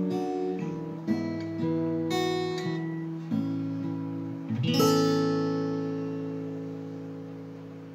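Acoustic guitar strumming the closing chords of a hymn: a few strums in the first seconds, then a final chord about five seconds in that is left to ring and slowly die away.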